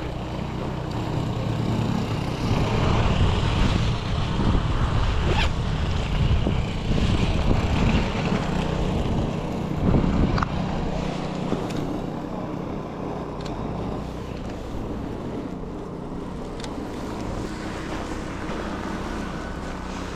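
Steady low hum of a vehicle engine under a rushing wind-like noise, louder for the first half and easing off after about 11 seconds, with a few sharp clicks.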